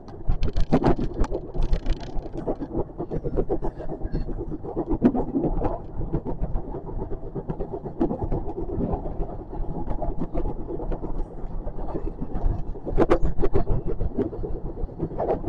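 JR West 521 series electric train running, heard from on board: a steady low rumble of wheels on rail with dense rattling and clicks, busier about a second in and again near the end.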